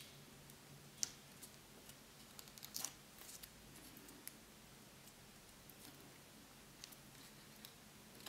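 Near silence with faint ticks and rustles of stamped cardstock pieces being pressed and adjusted by hand; a sharper tick about a second in and a short rustle near three seconds.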